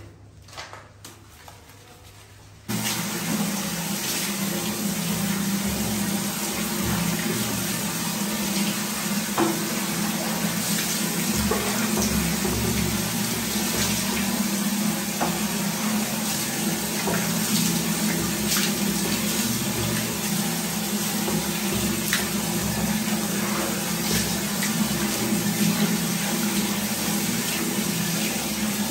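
Shower water running steadily, spraying onto a shampooed cat and the tiled floor as the lather is rinsed off. It starts abruptly about three seconds in, after a quieter start.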